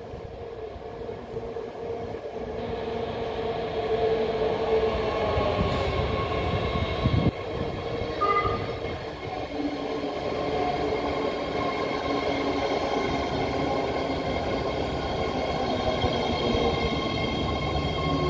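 BART Fleet of the Future train pulling into the station. Its wheels run on the rail, and its motors whine in several steady tones. It grows louder over the first few seconds as it arrives, then stays loud as the cars roll past, with a sharp knock about seven seconds in and a brief high beep just after.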